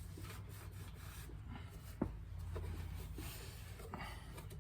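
Soft rubbing and scuffing as the oil-soaked air compressor is wiped clean by hand after being sprayed with brake cleaner, with a couple of light knocks.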